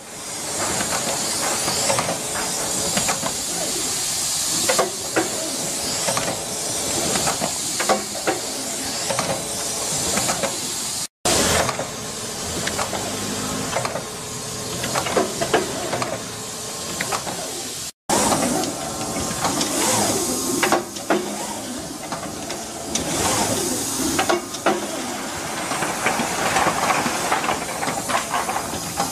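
Steady, fairly loud hiss with many scattered short clicks and knocks, cutting out completely for a moment twice.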